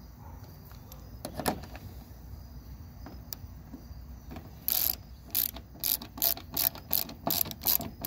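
Hand ratchet wrench clicking as it snugs down a bolt of a steel door-latch striker plate. A few faint clicks come early, then from about halfway through a quick run of repeated ratchet strokes, about three a second.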